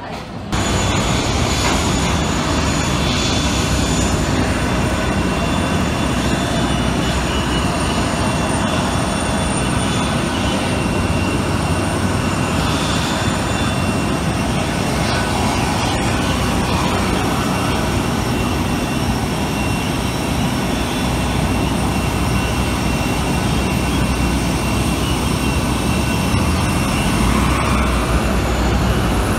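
Jet aircraft turbine noise on an airport apron: a steady loud rush with several high, steady whining tones over it, starting suddenly about half a second in.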